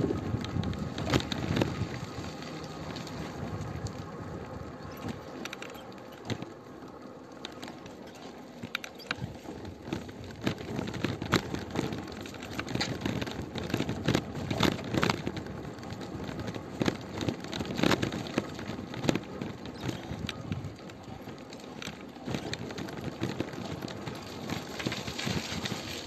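Footsteps scuffing and crunching on a gritty concrete path, in irregular knocks over a steady rustling haze.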